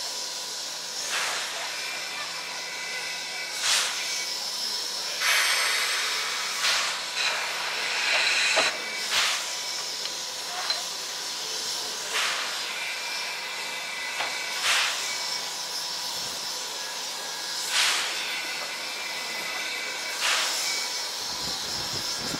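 Steam locomotive standing in steam: a steady hiss, broken every two to three seconds by short, sharper bursts of escaping steam.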